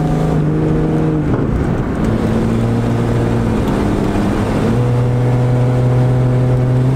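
Straight-piped 4.0-litre inline-six of a Jeep Cherokee under hard acceleration, heard from inside the cab. The engine note drops at a gear change about a second in and steps up again a little past halfway.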